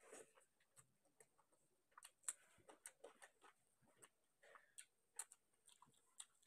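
Faint, irregular soft clicks and smacks of eating rice and chicken by hand: chewing with the mouth, and fingers working the rice on the plate.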